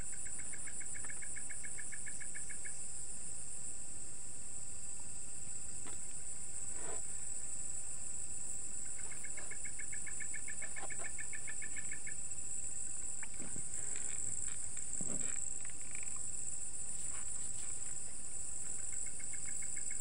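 Night insect chorus: crickets trilling steadily at a high pitch. A lower, rapidly pulsing trill comes in three bouts of two to three seconds each, with a few faint knocks and rustles in the middle.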